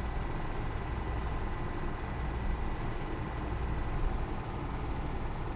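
Super 8 film projector running: a steady low hum with a faint high whine over a hiss.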